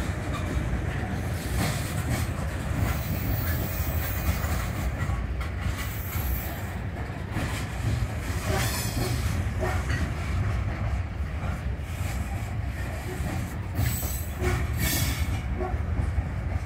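Freight train of covered hopper cars rolling past: a steady rumble of steel wheels on rail, with repeated clicks as the trucks cross rail joints, and brief high-pitched wheel squeal a few times.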